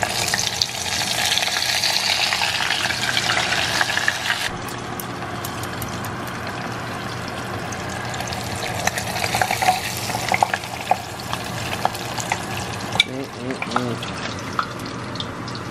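Flour-dredged bluegill fillets sizzling in hot frying grease. The sizzle is loud for the first four or five seconds, then settles to a quieter, steady frying with scattered small crackles and clicks.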